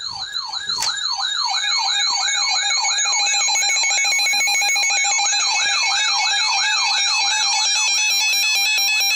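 Emergency Alert System alarm. A siren-like tone sweeps down over and over, about three times a second. About a second and a half in, the steady two-tone EAS attention signal joins it, announcing a severe thunderstorm warning. A single click comes just under a second in.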